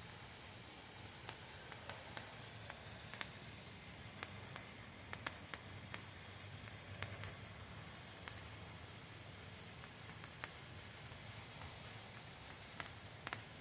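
Brothers Fireworks Crowning Glory handheld stick firework burning with a steady hiss that grows stronger about four seconds in, over a scatter of sharp crackles from its gold and titanium sparks.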